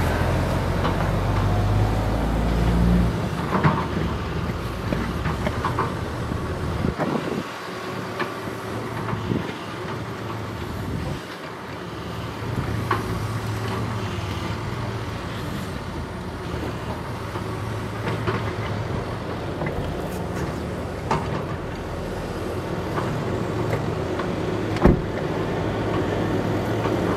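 Heavy diesel construction machinery running, the engine note loud at first, easing off for a few seconds and then building again, with scattered clanks and one sharp knock near the end.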